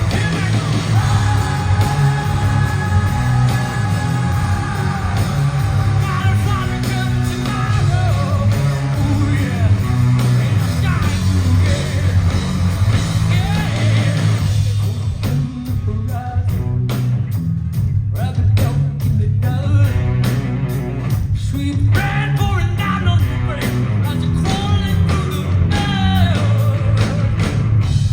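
Live rock band playing loudly with a lead singer: guitar, bass and drums under the vocals. About halfway in, the full wall of sound breaks into a run of sharp, evenly repeated hits, with the voice between them.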